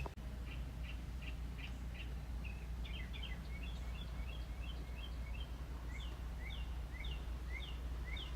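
A small bird chirping: a quick series of short high notes, turning about halfway through into repeated paired slurred notes, about two a second. Under it runs a steady low background hum.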